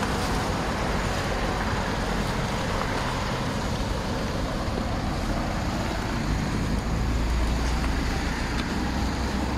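Road traffic on a wet street: a steady hiss of tyres with low engine rumble. A passing vehicle's rumble grows louder from about seven seconds in.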